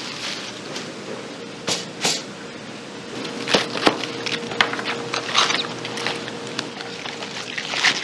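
A kitchen knife cutting large green onions on a plastic cutting board, making a series of sharp knocks with gloved handling and rustling between them, over a faint steady hum.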